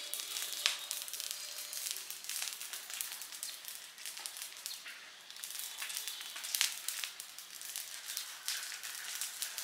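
A rubbish fire crackling as it burns, with irregular sharp snaps and pops over a steady high hiss.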